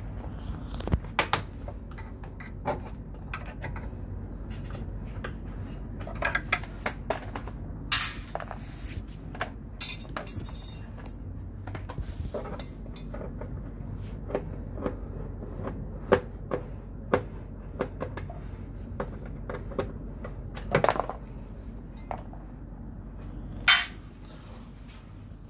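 Hand work on a scooter's plastic body panels: scattered clicks, knocks and metallic clinks of tools, screws and panels being handled, with screws clinking into a steel parts tray. A steady low hum runs underneath.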